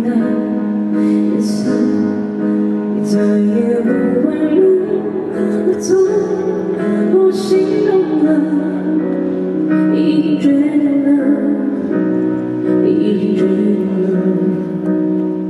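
Slow pop ballad rehearsed through a PA: a woman singing a melody over sustained instrumental chords.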